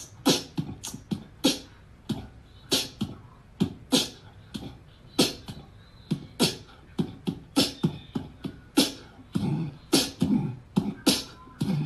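Beatboxing: a quick, uneven string of sharp mouth-made beats and clicks, several a second, with deeper thumps near the end.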